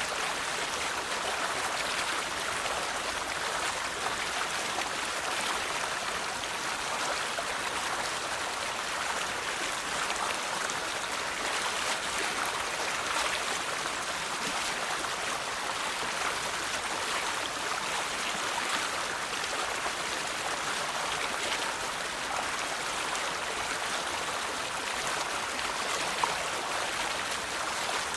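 River water flowing steadily over rocks, a continuous rushing and babbling with a faint click about 26 seconds in.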